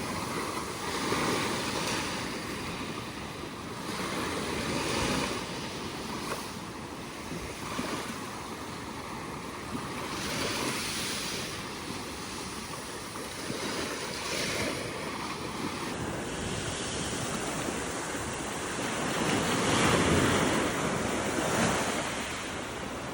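Sea surf washing on the shore, swelling and falling back every few seconds, with the biggest wave breaking about twenty seconds in. Wind rumbles on the microphone throughout.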